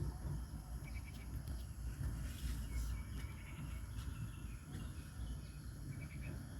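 Outdoor ambience: a steady high insect drone with a few short bird chirps, over a low rumble.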